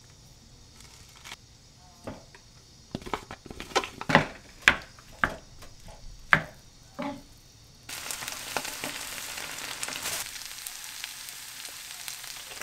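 Spatula knocking and scraping against a griddle pan as rice is chopped into a spicy stir-fry, about a dozen sharp knocks. Then, from about eight seconds in, steady sizzling as the rice fries in the pan.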